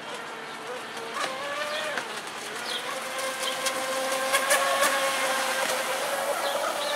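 Pro Boat Sonicwake RC boat's electric motor whining at speed. The pitch steps up about a second in, then holds with slight wavers, and the whine grows louder as the boat comes nearer.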